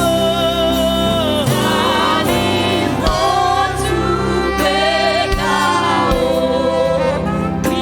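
Congregational gospel singing with a band, a sung melody over sustained keyboard chords and drum hits.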